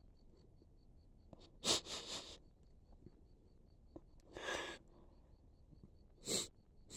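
A woman crying, sniffling in three short bursts, about two, four and a half, and six seconds in.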